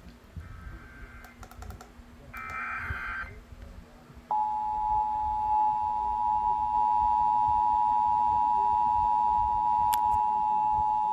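Emergency Alert System Required Monthly Test: the last two of the three SAME header data bursts, each about a second long with a second's gap between them. About four seconds in, the EAS two-tone attention signal starts and holds steady and loud.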